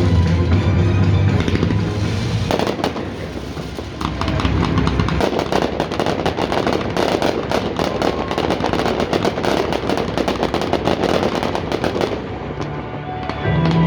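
A fireworks finale-style barrage of many rapid bangs and crackles in quick succession, dense from about two and a half seconds in until near the end. Music over stadium loudspeakers plays under it, clearer at the start and again at the very end.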